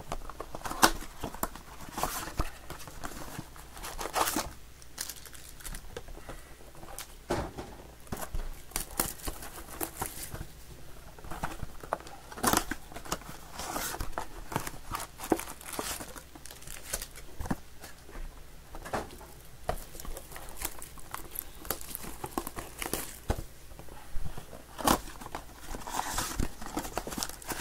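Panini Mosaic football card boxes and foil packs being torn open by hand: cardboard tearing and pack wrappers crinkling, in irregular rustles and sharp snaps.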